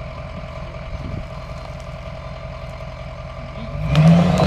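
Truck engine running steadily at idle, then revving hard under load about four seconds in, with a rising whine.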